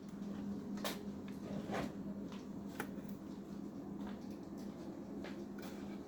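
A faint steady low hum with a few soft clicks and rustles.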